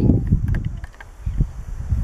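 Wind buffeting the camera microphone: irregular low rumbling gusts that rise and fall.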